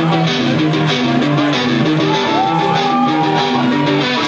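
Live band music: a strummed guitar chord pattern repeating evenly, with a higher note that glides up and is held for about a second and a half midway through.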